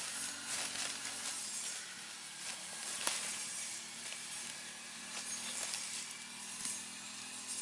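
Leafy plants rustling and crackling as they are pulled up by hand from the soil, with small sharp snaps here and there.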